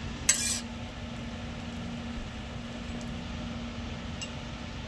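Steady low hum of kitchen equipment at a toast griddle, with one short sharp clatter of a utensil about a third of a second in and a faint tick near the end.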